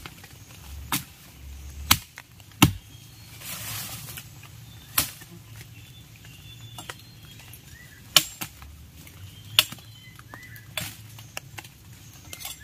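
Irregular sharp snaps and knocks, roughly one every second or so, with a short rustle a few seconds in: someone moving through jungle undergrowth.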